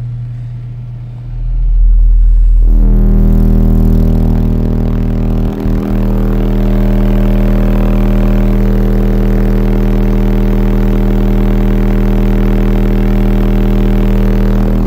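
Wolfram AU 15 subwoofer in a 3.75 cubic foot ported box tuned to 35 Hz, playing a 40 Hz test tone at about 140 dB inside a car, with the meter reading roughly 2,600 to 3,000 watts. The very loud steady bass tone starts about a second in, a buzzy stack of overtones joins it a second or so later, and it cuts out briefly twice around five and a half seconds in. The owner judges that the sub dropped out badly at 40 Hz.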